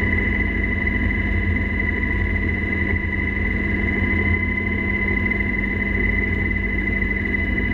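UH-60 Black Hawk helicopter in flight, heard from inside the cockpit: a steady deep rumble from the rotors and engines, with a constant high-pitched whine over it.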